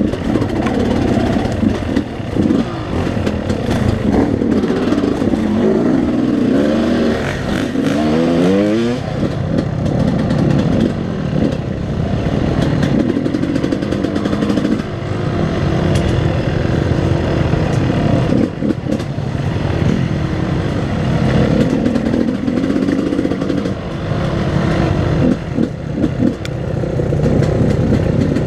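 Yamaha two-stroke enduro dirt bike engine running under throttle on a rough trail, its pitch rising and falling continuously as the rider works the throttle, with a quick series of rising revs about eight seconds in.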